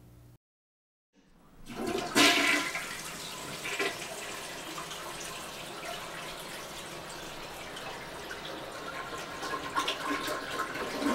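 Toilet flushing: a sudden rush of water about two seconds in that settles into a steady rush. It is a test flush after a toilet-paper clog has been cleared.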